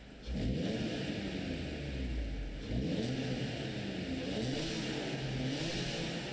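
Honda NSX's C30A 3.0-litre V6 being revved about four times from idle: each blip rises in pitch and falls back.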